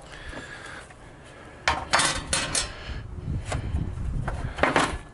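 Sheet-metal parts of a portable smoker clattering and knocking as they are lifted out of a hard plastic carrying case and set down on a concrete table, with a cluster of sharp knocks about two seconds in and more near the end.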